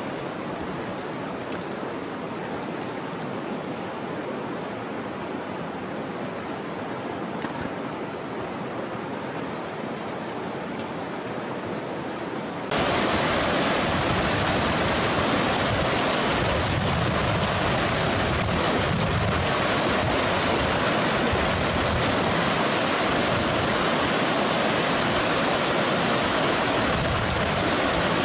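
Steady rush of flowing river water. About twelve seconds in it jumps suddenly louder and fuller: fast rapids churning close by.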